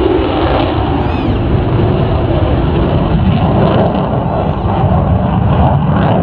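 Steady, loud jet engine noise from a Saab Gripen fighter, its Volvo RM12 afterburning turbofan, as it flies a display overhead.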